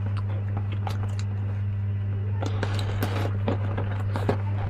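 Hands scratching and crinkling the plastic wrap and packing tape on a cardboard parcel: irregular crackles and rustles that get busier about halfway through, with one sharp crackle near the end. A steady low hum runs under it.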